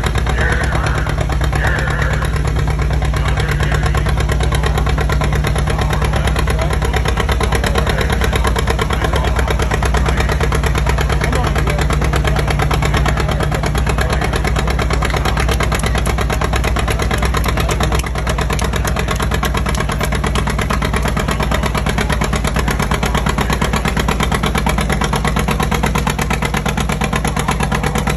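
Antique John Deere two-cylinder tractor engine working under heavy load as it pulls a weight-transfer sled, with a steady, rapid exhaust beat.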